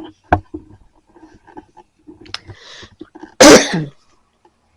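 A person sneezes once, loudly, about three and a half seconds in, with a sharp tap just after the start.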